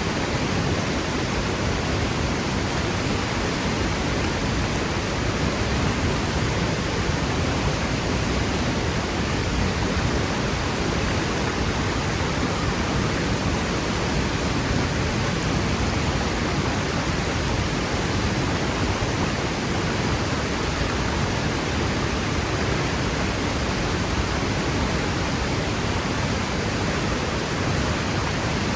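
Waterfall: the steady roar of a powerful fall of water crashing onto rock, an even rushing noise without a break.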